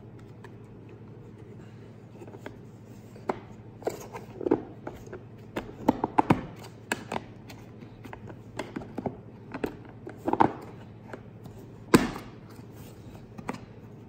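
Hard plastic pistol case being packed and shut: irregular knocks and clicks of the pistol, magazine and lid against the plastic shell, then the latches snapping closed, the sharpest click near the end.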